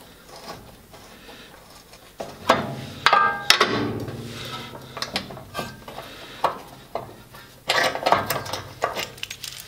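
Steel clinks and knocks of a small three-arm puller being fitted and tightened on the rusty cutting-disc hub of a Welger SM4 disc mower, some strikes ringing briefly. The first knocks come about two and a half seconds in, and a quick run of clicks and clatter comes near the end.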